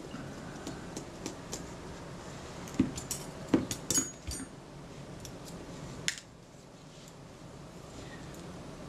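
Small metallic clicks and taps of fine tweezers and a screwdriver handling the parts of a camera leaf-shutter mechanism. A cluster of sharper clicks comes about three to four seconds in and another about six seconds in.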